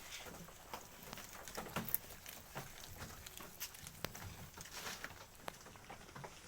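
Goats at their feed: irregular rustling and crunching with scattered small knocks and clicks.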